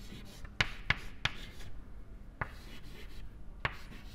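Chalk writing on a blackboard: scratchy strokes punctuated by sharp taps as the chalk strikes the board, several close together in the first second and a half, then a few more spaced out.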